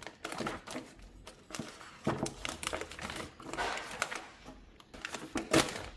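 Plastic snack packaging crinkling and rustling as it is handled, in irregular bursts with a few sharp clicks.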